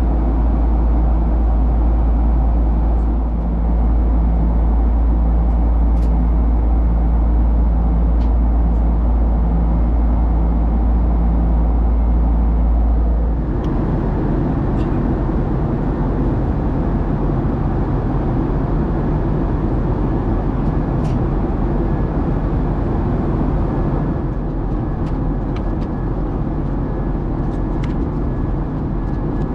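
Airliner cabin noise: a steady rumble of engines and airflow. About halfway through it changes abruptly to a broader, more even hiss-and-rumble. A few faint clicks and taps sit on top.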